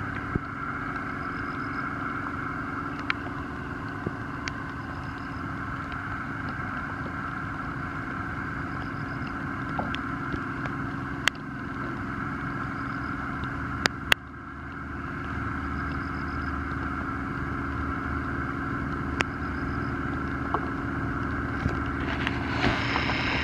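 Steady drone of a motorboat engine running, with a few sharp clicks and knocks scattered through it and a short rush of hiss near the end.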